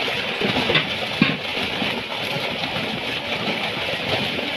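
Water splashing as fish thrash in a seine net being hauled through shallow pond water, a steady churning with a couple of sharper splashes about a second in.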